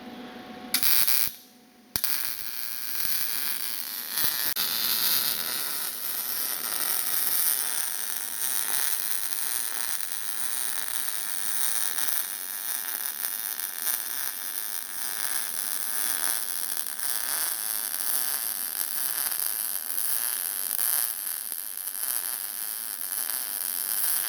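MIG welder arc on mild steel, striking about two seconds in and then burning with a steady, dense crackle.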